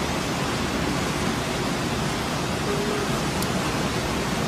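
Steady rush of heavy, fast-moving water, an even roar with no breaks.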